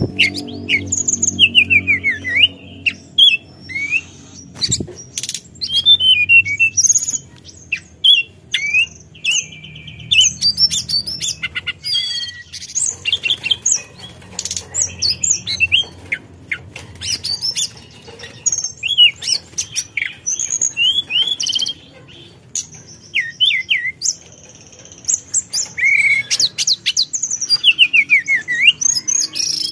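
Hill blue flycatcher singing a long run of rapid, varied phrases: short whistled sweeps up and down, mixed with chattering and ticking notes, over a faint low hum.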